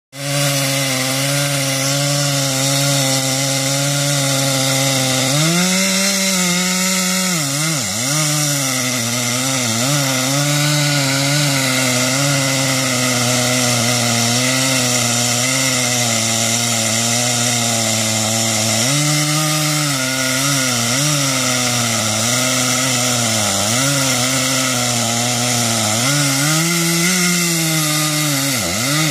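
Chainsaw running at high revs and cutting wood. Its pitch swings up and down, dipping sharply several times as the chain bites into the cut and the engine bogs under load.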